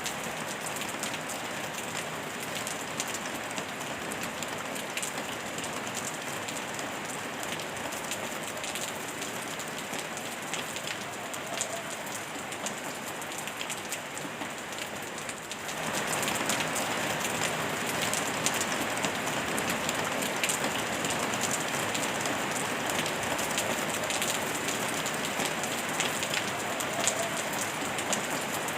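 Steady rain falling, a dense hiss of drops with scattered ticks, mixed with pink noise. About halfway through, the sound steps up suddenly and turns louder and brighter.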